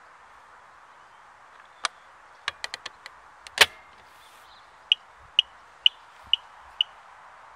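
Husqvarna Automower keypad buttons clicking, then the keypad hatch shutting with one loud knock, followed by five short high beeps, about two a second, from the mower's audible anti-theft alarm.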